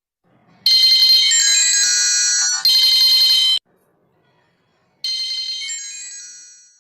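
Bright electronic chime jingle of high, bell-like notes: a loud phrase of about three seconds, then after a short gap a second phrase that fades out.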